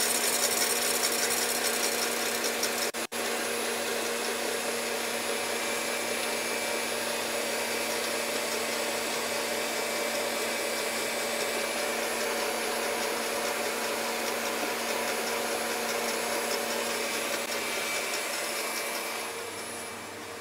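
KitchenAid Heavy Duty stand mixer running, its wire whisk beating egg whites in a stainless steel bowl as hot sugar syrup is poured in to make an Italian meringue. A steady motor hum and whirr, with a momentary break about three seconds in.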